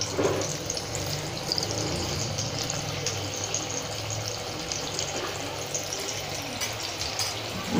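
Hot oil sizzling and crackling steadily as pieces of kothimbir vadi (steamed gram-flour and coriander cakes) deep-fry in a steel kadhai.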